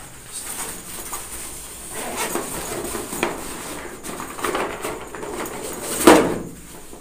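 Close rustling and bumping of clothing against the microphone as the camera is pressed against someone's body. One louder sudden sound comes about six seconds in.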